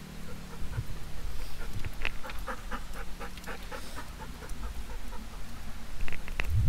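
Dog panting close by, a quick run of breaths about six a second, with a few knocks and a thump near the end.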